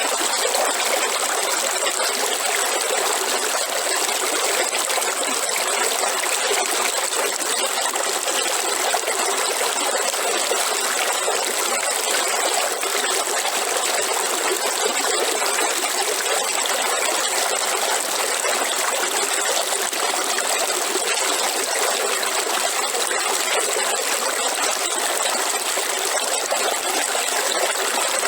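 River water running, a steady trickling rush with no deep rumble.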